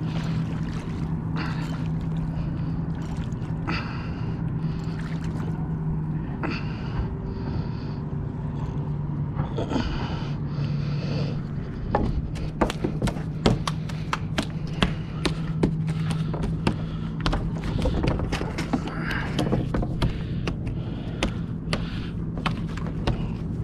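A small spiny dogfish shark flapping and slapping on wooden pier boards, a quick run of sharp knocks from about halfway on, over a steady low engine hum.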